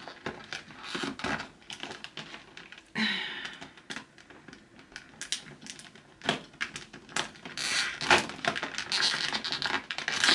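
Skincare product packaging being unwrapped by hand, crinkling and tearing in irregular rustles with sharp clicks, busier near the end.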